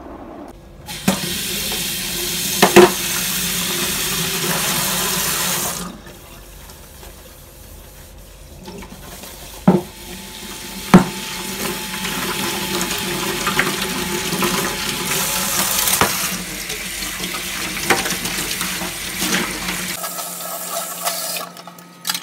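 Kitchen tap running into a stainless steel sink, splashing over hands being washed, with a few sharp knocks. The water stops about six seconds in and runs again from about nine seconds until shortly before the end.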